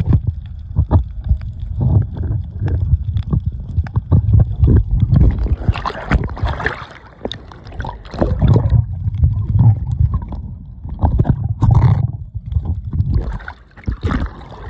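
Seawater sloshing and gurgling around a small camera as it moves just under and through the surface, an uneven low rumble with small splashes and clicks.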